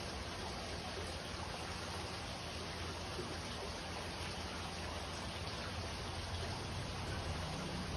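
Saltwater aquarium's water circulation: a steady trickle and rush of moving water, with a low steady hum underneath.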